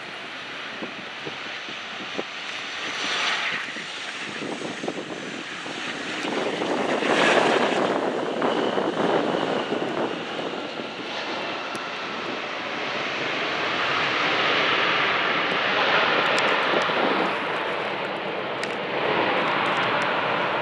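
Aircraft engine noise from a passing airplane, swelling about seven seconds in, easing, then building again and staying loud toward the end.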